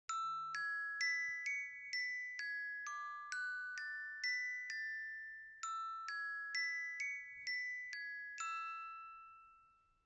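Countdown timer's alarm: a bell-like chime melody of struck notes, about two a second in two phrases, each note ringing briefly. The last note rings out and fades away near the end.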